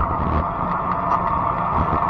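Steady rumble and hiss of riding a fat-tire e-bike: tyre and wind noise, with a faint steady high whine running under it.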